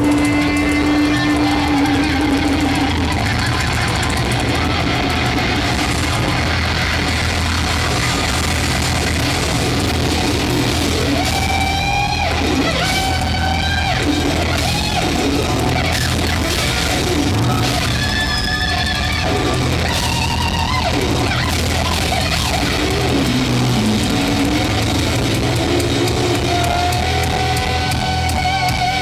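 Live instrumental rock: a lead electric guitar plays a slow melody over electric bass and drum kit. It holds a long note at the start that breaks into vibrato about two seconds in, then plays bending, sliding phrases.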